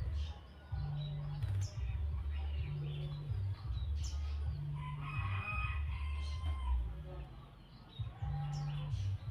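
Birds chirping, with a longer call like a rooster crowing about five seconds in, over background music with a repeating bass line.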